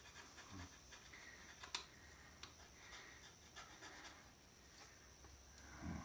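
Near silence broken by faint clicks and light rubbing of small parts being handled, with one sharper click a little under two seconds in.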